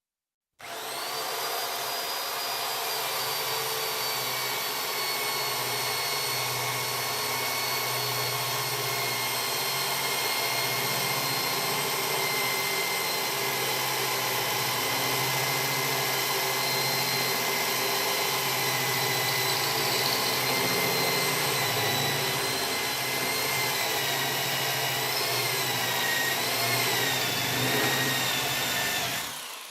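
Electric drill motor running at a steady high speed with a steady whine, starting abruptly about half a second in. Near the end its speed wavers a few times before it dies away.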